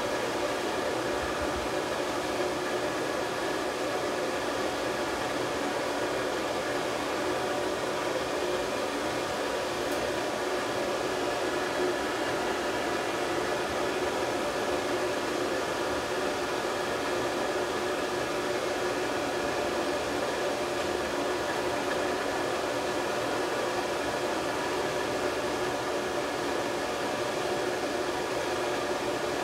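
Hair dryer on a stand running steadily, blowing on a puppy's fur to dry it: an even rush of air with a faint steady hum in it.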